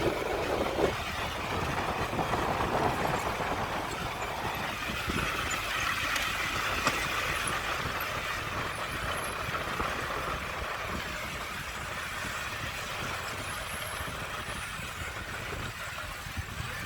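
Diesel engine of heavy earthmoving machinery running steadily, with a couple of sharp knocks in the first second.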